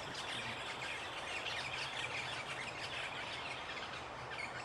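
A dense, overlapping chatter of short bird chirps over a steady background hiss.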